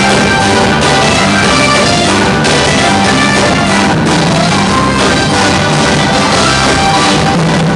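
Loud live gospel band music, with electric bass and drums.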